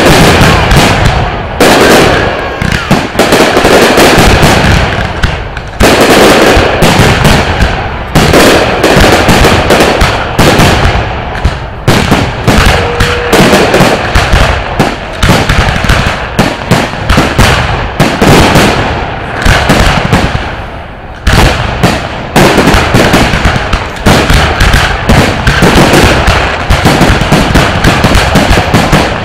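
Dense barrage of aerial firework shells bursting, the bangs overlapping almost without a break. There are short lulls about six seconds in and again about twenty-one seconds in.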